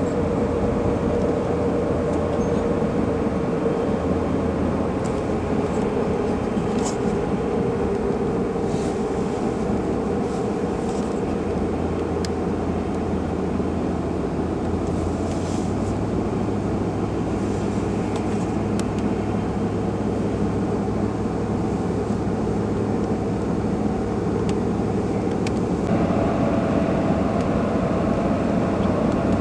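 Steady engine and road noise heard inside a vehicle driving along a highway, with a constant low hum and a steady droning tone. The tone shifts slightly near the end.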